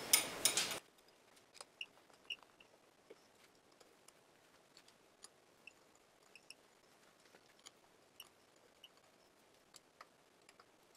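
Faint, scattered clicks and short light squeaks of hands turning and handling the metal brake disc and locking disc of a Demag P hoist motor.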